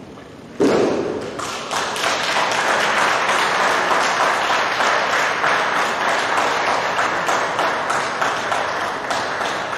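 A thrown judoka lands in a breakfall on the tatami with a single loud slap, about half a second in. Audience applause then builds and continues steadily.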